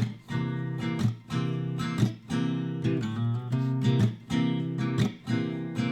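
Background music: strummed acoustic guitar chords, a fresh strum about once a second.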